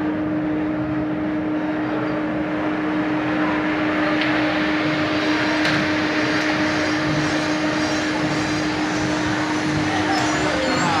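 A steady mechanical drone: a constant low hum holding one pitch over an even rushing noise, unchanging throughout.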